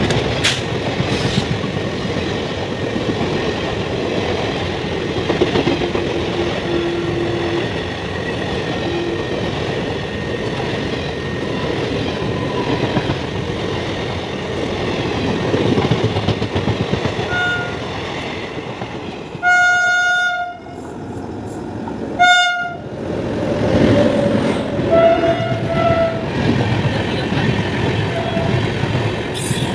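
Express passenger trains running through a station at speed: the coaches rumble and clatter over the rail joints throughout. A train horn sounds a long blast about two-thirds of the way in, a short blast a couple of seconds later, and fainter calls again soon after.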